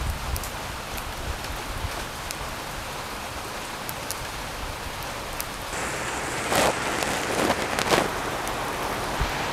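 Wood fire burning under cow feet being singed, a steady hiss with scattered sharp crackles. A few louder rustling swishes come about two-thirds of the way through.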